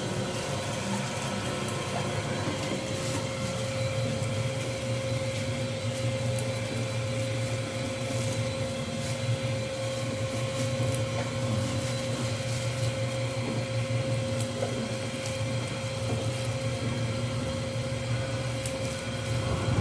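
Automatic tteokbokki hot dog machine running steadily: a continuous motor hum with a steady whine and occasional light clicks.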